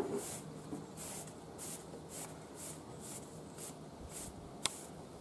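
A brush being drawn through a horse's tail hair: soft, regular swishes about twice a second, with one sharp click near the end.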